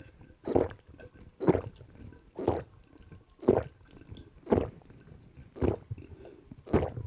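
A person gulping a drink, about one swallow a second, close to the microphone.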